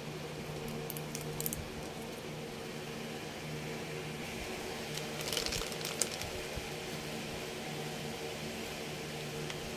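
Soft rustles and a light click of moringa leaves being dropped onto a wet tuna-and-egg mixture in a ceramic bowl, about a second in and again around five to six seconds in, over a steady low hum.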